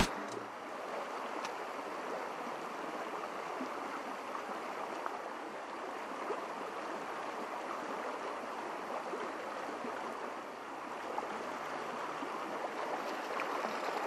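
Shallow creek running over stones: a steady rush of flowing water.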